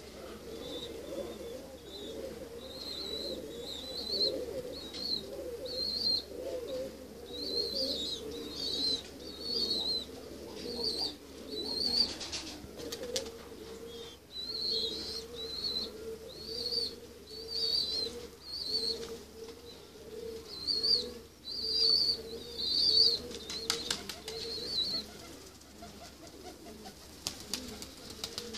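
Domestic pigeons cooing continuously, with a small bird chirping in short high notes about once a second until a few seconds before the end.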